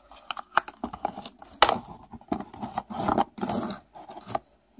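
Hard plastic toy houses and a small figurine being handled: a run of clicks, knocks and scrapes as the figurine is fitted inside. The sharpest knock comes about one and a half seconds in.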